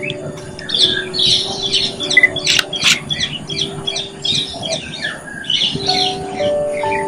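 A flock of aviary birds keeps up a dense chatter of short squawking calls, with a couple of sharp calls about three seconds in. Soft background music with long held notes runs underneath.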